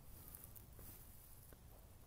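Near silence, with a faint low rumble and a few soft ticks.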